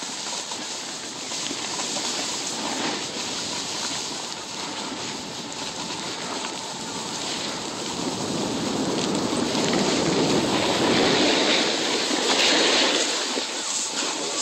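Snowboard sliding over snow with wind rushing on a phone's microphone: a steady hiss that grows louder about halfway through.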